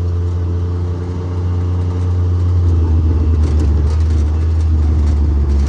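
A vehicle's engine running steadily as it drives, a strong low drone, with a few light rattles and knocks from about three seconds in.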